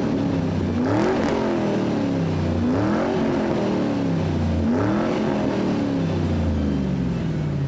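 Car engine revving, its note rising and falling about four times, roughly every two seconds, over a steady low rumble.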